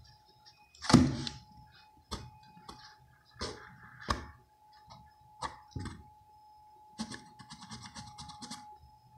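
Cardboard box scraping and knocking as a cat lying in it plays with a hand: separate sudden scrapes, the loudest about a second in, then a quick run of scratchy clicks near the end.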